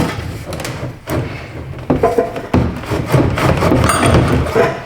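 Exhaust pipe and muffler inlet knocking, clanking and scraping metal on metal as the pipe is forced into a very tight slip fit, with several sharp thumps.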